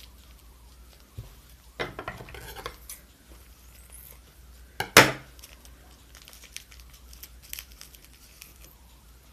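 Small plastic jewelry packet being handled and cut open with scissors: plastic wrap crinkling about two seconds in, then one sharp snip about five seconds in, the loudest sound, with small clicks and rustles around it.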